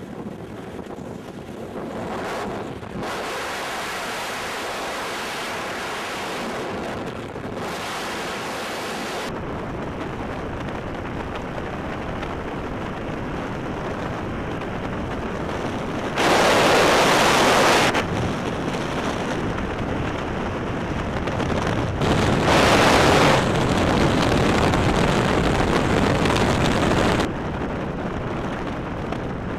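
Freefall wind rushing over a camera's microphone, a steady hiss-and-rush with no tone in it. It changes level abruptly several times, growing much louder for about two seconds past the middle and again for about five seconds near the end.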